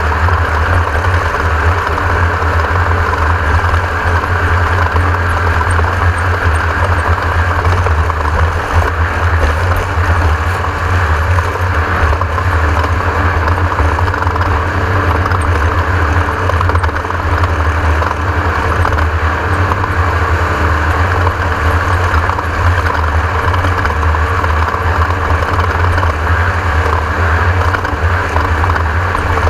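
Class 1600 desert race car's air-cooled Volkswagen 1600 cc engine running at a steady, loud drone under racing load, with no gaps or gear changes.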